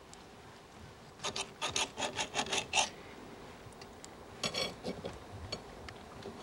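Table knife sawing back and forth through steak on a metal sizzle plate: a quick run of about eight scraping strokes, then a shorter burst a couple of seconds later, with a few light clinks of cutlery.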